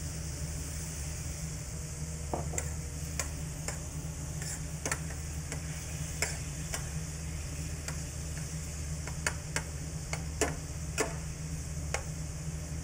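A metal spoon stirring and scraping the bottom of a stainless steel sauté pan, with irregular clicks against the pan, while balsamic vinegar sizzles faintly in the hot pan. This is deglazing: the stirring lifts the caramelized brown bits off the pan bottom.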